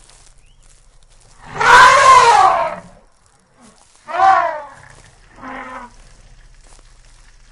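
Wild Asian elephant trumpeting three times: a loud call about a second and a half long, a shorter call falling in pitch, then a fainter short one.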